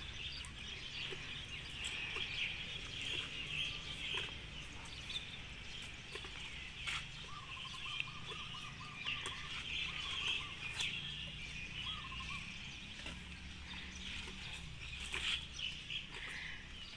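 Rural outdoor ambience: birds chirping steadily, with a chicken clucking around the middle.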